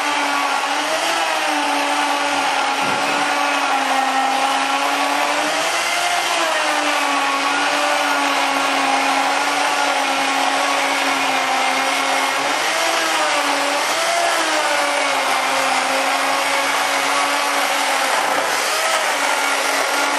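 Motor of an electric plate pocket cutter running steadily as it is pushed through the foam core of a structural insulated panel, its pitch wavering slightly as the load changes.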